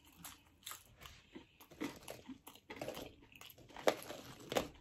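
A person chewing crunchy deep-fried food, the crisp batter crackling in irregular crunches, with louder crunches about four seconds in and just before the end.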